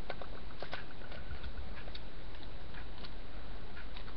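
Faint, irregular small clicks and ticks of a screw being turned by hand as the Cyclone feeder is fastened back onto a Tippmann A5 paintball marker, over a steady hiss.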